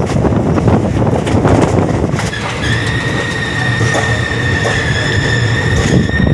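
Passenger train coaches running on the track with rumble and rail clicks. After about two seconds a steady high-pitched squeal sets in as the train brakes into a station platform.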